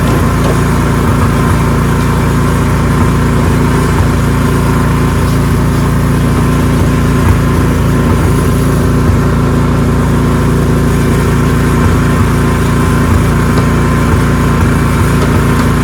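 Ariens 624E two-stage snowblower's engine running steadily and loudly, with no change in speed.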